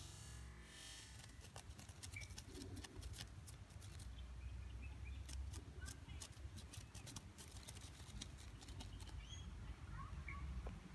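Faint garden ambience: a low rumble, many small sharp clicks of close handling, and a few short, high bird chirps.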